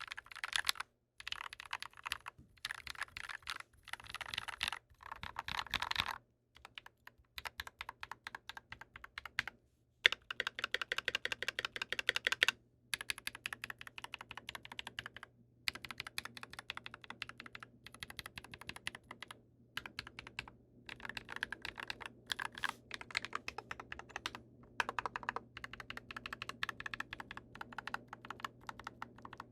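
Typing on a GMMK Pro mechanical keyboard with lubed Glorious Panda tactile switches and GMK keycaps: rapid key clacks in runs of a second or two with short pauses between, and one sharper, louder keystroke about ten seconds in.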